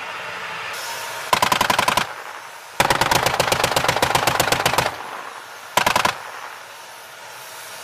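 Automatic machine-gun fire in three bursts of rapid, evenly spaced shots: a short burst about a second in, a longer one of about two seconds from near three seconds in, and a brief one near six seconds, with a steady background noise between bursts.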